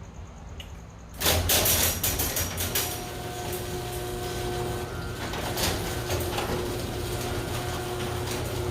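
Garage door opener starting up about a second in with a loud clatter, then running steadily as the door travels, with a low hum and a steady whine from the motor.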